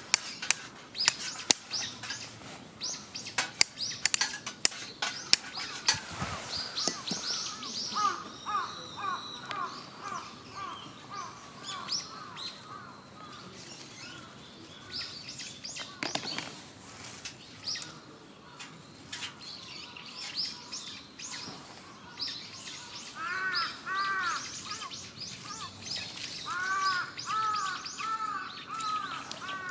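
Birds chirping and calling, many short repeated arched notes, with a few lower, harsher repeated calls near the end. A quick series of sharp snaps or clicks during the first six seconds is the loudest sound.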